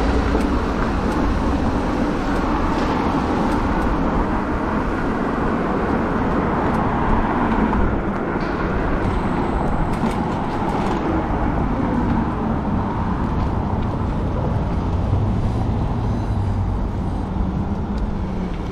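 Steady wind and road noise from riding an e-bike: air rushing over the microphone and tyres rolling on pavement, with the hum of road traffic mixed in.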